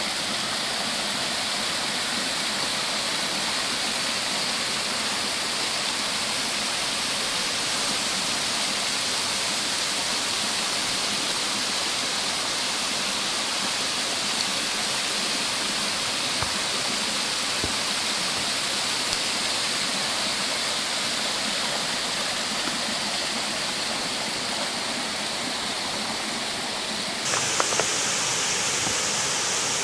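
Waterfall rushing: steady, even water noise. It turns a little louder and brighter near the end, with a couple of faint knocks.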